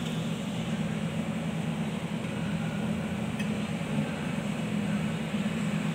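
Steady low hum of a running machine with an even background noise.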